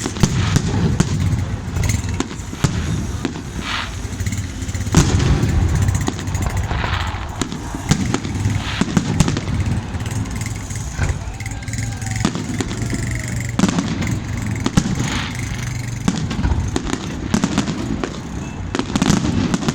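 Fireworks display: repeated sharp bangs and crackles of exploding shells, irregularly spaced, over a steady low rumble.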